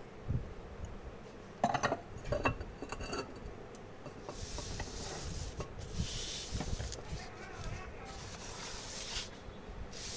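A few light knocks, then several seconds of rubbing and scraping as things are handled and slid about inside a kitchen cabinet.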